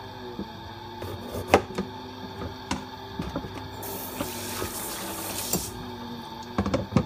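A kitchen knife and a white cutting board handled over a sink: scattered knocks and clicks of the blade against the board, with a hissing rush of scraping or running water from about four to five and a half seconds in. Faint background music underneath.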